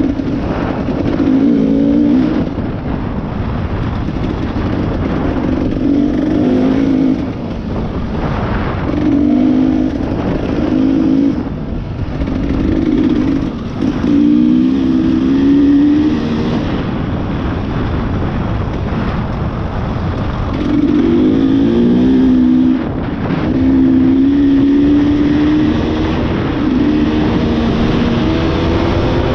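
Off-road motorcycle engine being ridden, repeatedly revving up and dropping back in short throttle bursts of a second or two, with steady wind and riding noise throughout.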